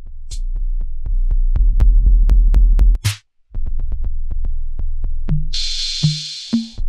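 Electronic music with a drum-machine beat over deep bass, hits about four a second. It stops briefly about three seconds in, and a burst of hiss comes near the end.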